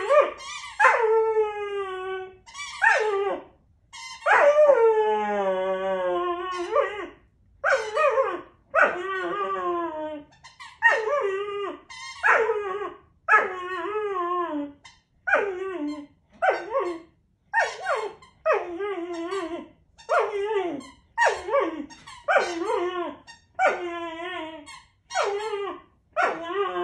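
Puppy whining over and over while holding a squeaky toy: a string of high, falling whines about one a second with short gaps, and one long drawn-out whine about four seconds in.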